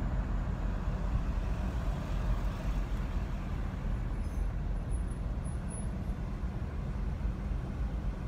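Steady low rumble of road traffic and a car idling, with a faint hiss over it.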